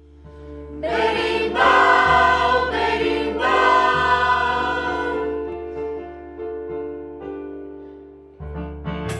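Music: a choir singing sustained chords over a low held bass note, swelling in about a second in and slowly fading away. Near the end a new, rhythmic piece of music begins.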